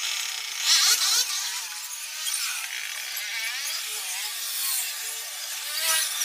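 Hands handling and fitting small aluminium engine parts, with light scraping, rustling and metal clicks. A brief clatter comes about a second in.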